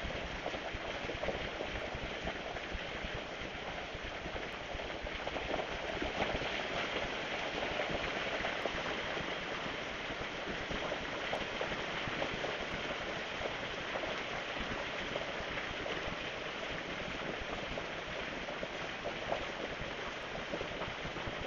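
Steady rain falling and pattering on surfaces, a dense even hiss of many small drops.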